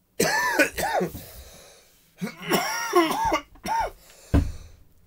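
A man coughing and clearing his throat: two long, strained fits and a short sharp cough near the end.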